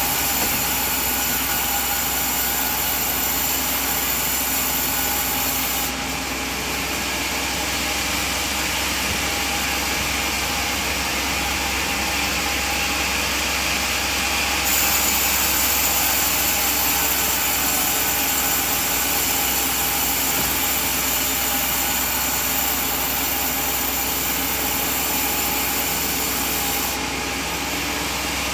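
Sawmill band saw running and cutting coconut wood: a loud, steady machine noise. The high hiss drops off abruptly about six seconds in, comes back about halfway through, and drops again near the end.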